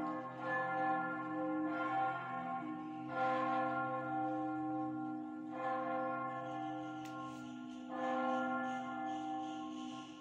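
A church bell tolling slowly, struck about every two to three seconds, each stroke ringing on and overlapping the next.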